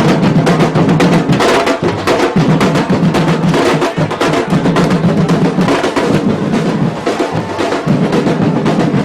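Afro-Brazilian batuque percussion ensemble drumming a dense, driving rhythm, with deep drums underneath and sharper hand percussion on top.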